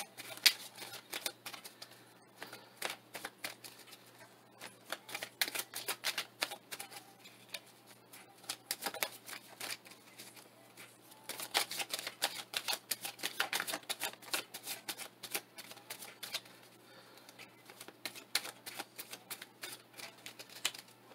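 A deck of tarot cards being shuffled by hand: rapid clicking and snapping of cards in several bursts with short lulls between, the longest run in the middle.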